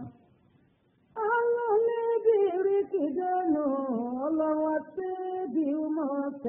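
A high voice singing a flowing, held melody line, coming in about a second in after a brief near-silence.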